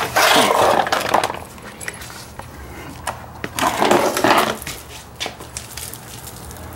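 2013 Mazda3's plastic engine undercover being pulled out and set down on a concrete floor: two scraping, rattling bursts of plastic about a second each, one at the start and one near the middle, with a few sharp clicks between.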